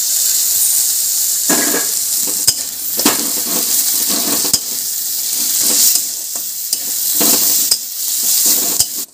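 Sliced tomatoes and fried onions, chillies and garlic sizzling in hot oil in a kadai, with a steady high hiss. A steel spatula scrapes and stirs through them about every second or so.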